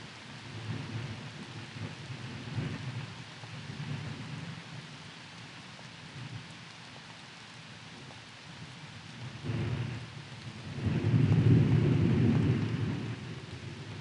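Steady rain with thunder rumbling low throughout, swelling into a louder roll of thunder lasting about two seconds near the end.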